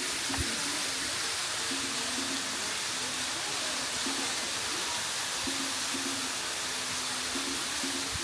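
Artificial waterfalls pouring over a stone wall into a shallow pool, a steady even rush of falling and splashing water.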